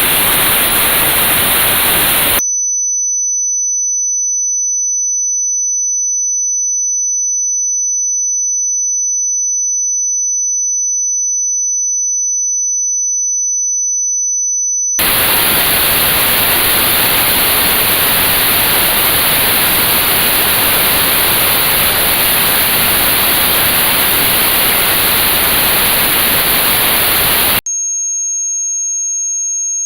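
Tinnitus test signals: white noise with a band of its high frequencies notched out, which switches about two seconds in to a steady, very high pure tone. The notched noise returns about halfway through, then gives way near the end to a slightly higher pure tone.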